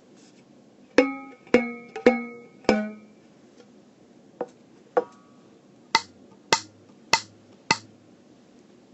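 Rubber band stretched across a plastic cup, plucked repeatedly like a rubber band banjo: four twangs with a clear ringing pitch, about half a second apart, then two faint plucks, then four sharper, duller plucks.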